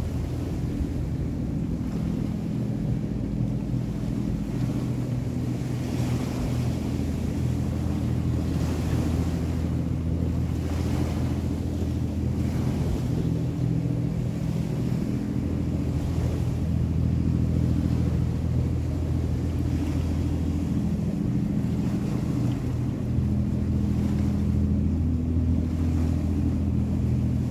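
Steady low drone of a large motor yacht's engines passing offshore, with small waves washing against the shoreline rocks in soft surges every few seconds.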